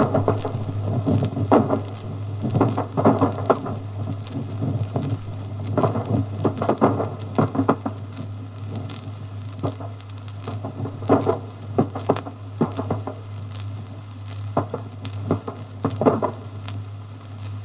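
Gunfire heard at a distance: irregular clusters of sharp cracks and rattles, some in quick runs, over a steady low hum from an old disc recording.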